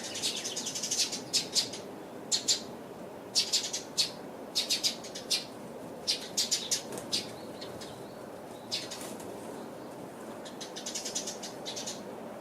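Clusters of quick, sharp rustles and taps from small wild birds (a pale thrush and Eurasian tree sparrows) moving about, fluttering and pecking. The bursts bunch in the first half and again near the end, over a faint steady background hum.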